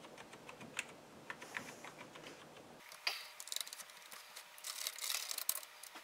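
Amiga 1000 keyboard keys pressed one after another in a key-by-key test, each keystroke a sharp click. The clicks are scattered for the first few seconds, then come in a quick run from about halfway through.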